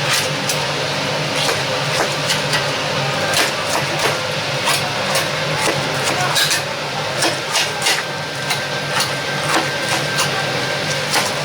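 Fried chicken being chopped with a straw-cutter blade on a cutting board: irregular sharp chops, roughly one to three a second, over a steady low hum.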